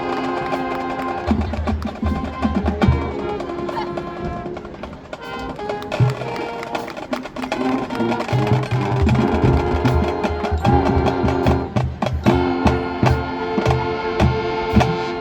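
High school marching band playing: sustained brass chords over a pulsing bass drum and snare percussion, the drum beat growing more steady and driving in the second half.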